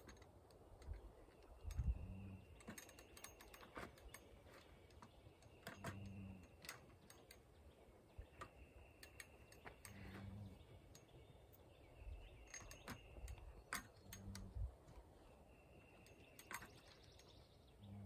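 Faint, scattered clicks and taps of a metal table pole and its plastic latch fittings being worked into place by hand, with birds calling faintly in the background.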